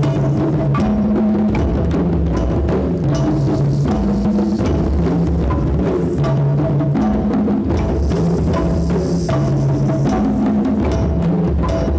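An ensemble of tall hand drums played together in a steady, repeating rhythm, with low tones shifting between a few pitches.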